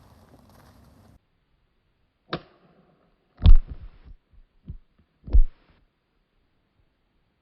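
12-gauge shotgun firing two loud shots about two seconds apart, with a sharper, lighter crack a little before the first and a faint clack between the shots.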